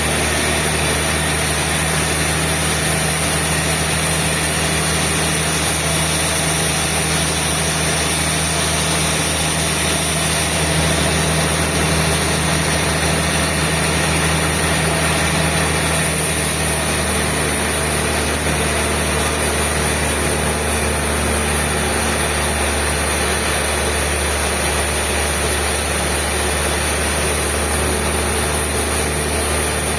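Sawmill machinery running steadily with an even, engine-like hum; its tone shifts slightly about halfway through.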